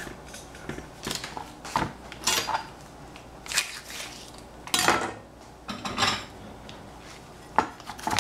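Kitchen handling sounds: a knife knocking and clicking against a plastic cutting board as a plastic tofu package is cut open, and a ceramic bowl set down on the counter. The knocks come at irregular moments, with a louder cluster about five seconds in.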